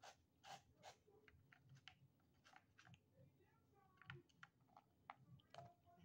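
Kittens eating dry kibble from a plastic dish: faint, irregular crunching and clicking of teeth on the pellets, several small crunches a second.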